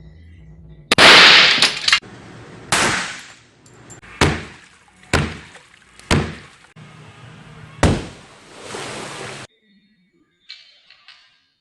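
A series of about six sharp bangs or impacts, one every second or so, some with a breaking, shattering sound; it stops short near the end.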